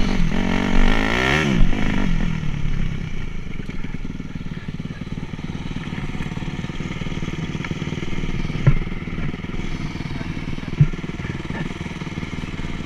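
Dirt bike engine revving up and down briefly, then settling to a steady idle. Two short knocks come in the second half.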